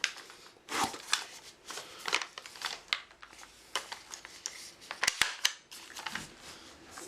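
Box packaging rustling and scraping in irregular bursts as an airsoft rifle is unpacked, with two sharp clicks about five seconds in.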